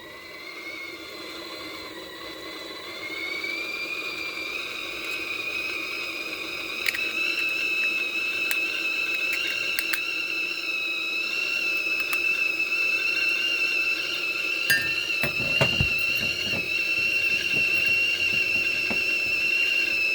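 Kettle whistling at the boil: one steady whistle that slides up in pitch about two or three seconds in and grows steadily louder, with a few light clicks and knocks.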